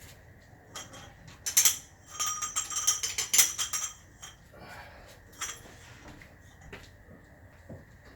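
Steel engine parts and tools clinking and clattering against each other, busiest from about one and a half to three and a half seconds in, then a few single clicks.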